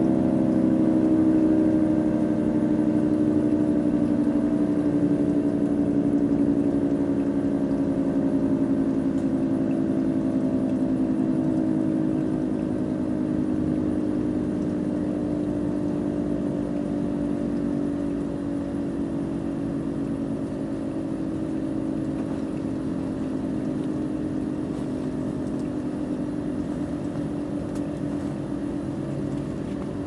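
Federal Signal 2T22A dual-tone rotating outdoor warning siren sounding its steady Alert signal during a test: a sustained two-tone chord that drifts slowly lower in pitch and a little softer.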